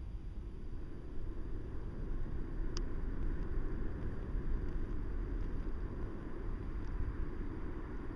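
Steady low rumble of wind buffeting the microphone of a camera hanging under a high-altitude balloon in flight, with a single small click about three seconds in.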